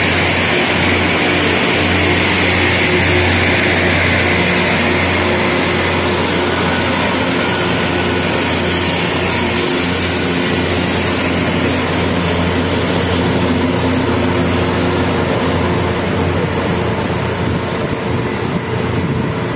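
Rail grinding machine passing at close range, its grinding stones working the rail heads, over the steady low hum of its diesel power cars. The dense grinding noise is loud and steady, its higher part easing off about six seconds in.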